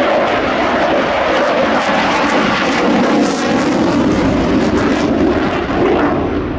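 Dassault Rafale's twin Snecma M88 turbofans in afterburner during a display turn: a loud, steady jet roar with a crackling edge through the middle.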